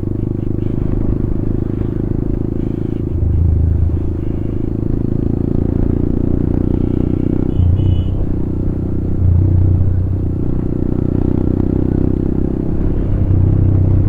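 Motorcycle engine and exhaust running steadily while riding, a low note that swells louder for about a second four times.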